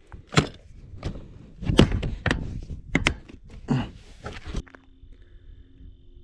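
Swatting at flies: a series of sharp smacks, about six in four and a half seconds, two of them in quick succession near the three-second mark. The sound then cuts to a quiet background with a faint steady tone.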